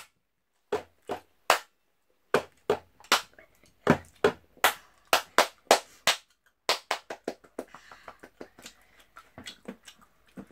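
A child chewing and mouth-smacking on a spicy sausage close to the microphone: a run of sharp, irregular smacks, two or three a second, quickening about seven seconds in and growing softer toward the end.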